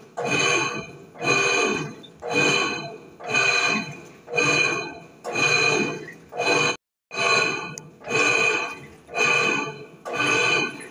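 Electrolux 10.5 kg washing machine agitating, each stroke of the agitator about once a second bringing a very loud whining noise that swells and fades. It is the sign of a damaged bearing, either the transmission (mechanism) bearing or the motor bearing.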